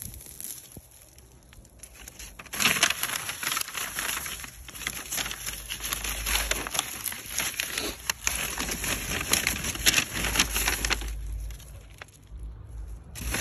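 Brown paper bag crinkling and chamomile stems rustling as cut plants are pushed into it. A dense, crackly rustle runs from about two and a half seconds in to about eleven seconds, with a shorter burst near the end.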